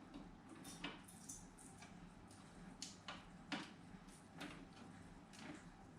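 Faint, scattered clicks and light taps of parts being handled and pushed into place inside a PC case, over a low room hum.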